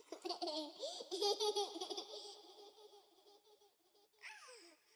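A young child laughing: a run of high-pitched giggles, loudest in the first two seconds and then fading, with a short falling squeal near the end.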